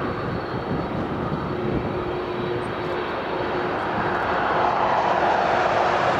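Boeing 747-400's four turbofan engines running as the jet rolls along the runway: a steady rushing jet noise that grows louder about four seconds in.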